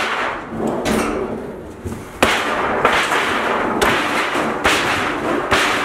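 Sheet-metal interior wall panel of a school bus being kicked repeatedly to bend it off the wall: a metallic bang with a rattling, ringing decay about once a second.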